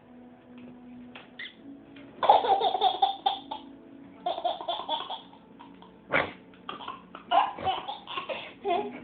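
A baby laughing in repeated bursts of giggles, starting about two seconds in.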